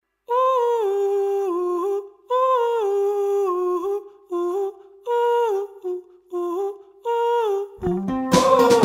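Wordless vocal melody in a run of short phrases, each stepping down in pitch. Guitar and fuller band accompaniment come in near the end: the intro of a folk-rock song.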